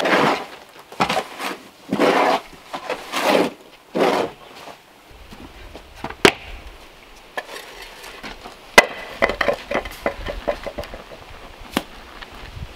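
Hoe scraping and pushing through wet cement mix in a plastic mixing tub, several strokes about a second apart; after that, sharp knocks and a quick run of taps of a hatchet on wood.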